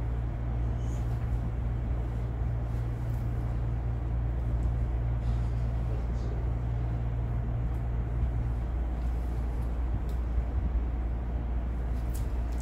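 Steady low machine hum with a noisy rumble under it. One of its low tones drops out about nine seconds in, and a few faint clicks sound above it.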